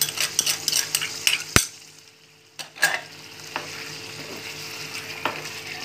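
A spoon scraping and clinking against a glass bowl in quick strokes as cashew paste is emptied into a pot of curry, ending in a sharp knock about one and a half seconds in. After that the curry sizzles steadily in the pot, with an occasional clink of the spoon.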